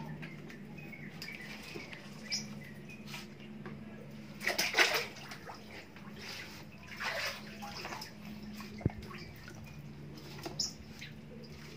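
An otter splashing and paddling in a plastic basin of water, in irregular bursts that are loudest about five seconds in. A steady low hum runs underneath.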